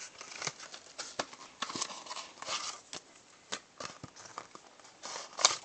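Hands handling small unboxed items and their packaging on a desk: irregular light taps, clicks and crinkly rustles, with a sharper click near the end.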